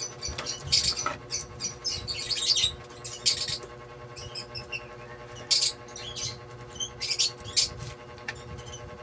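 Copper magnet wire being pulled by hand through the slots of an alternator stator during rewinding: irregular short scraping rasps and squeaks as the wire rubs against the slot edges and stator core.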